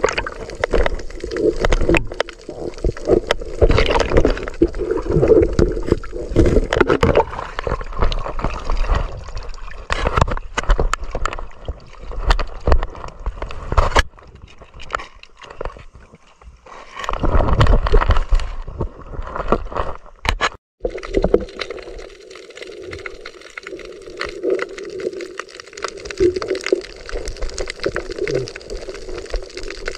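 Water sloshing and gurgling around a handheld camera as a snorkeller spearfishes, moving between the surface and underwater. Short knocks and clicks run through it, with the loudest splashing bouts about 4 s in and again about 17 s in.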